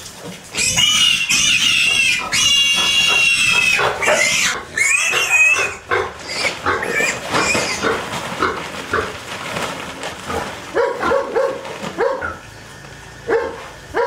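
Pigs squealing loudly for the first few seconds, high and drawn-out, then a long run of short, repeated grunts.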